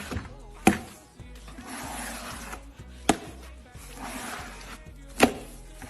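Close-up crackling, in repeated rounds of about a second and a half of crackle, each followed by a single sharp snap, three snaps in all.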